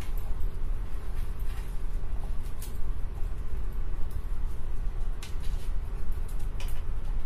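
Hands tearing and crumbling a cooked bajra (pearl millet) roti into small pieces, with a few short dry crackles, over a steady low rumble.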